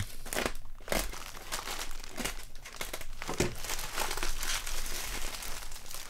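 Plastic courier mailer bag crinkling and crackling as it is slit with a utility knife and torn open by hand, with many short irregular crackles.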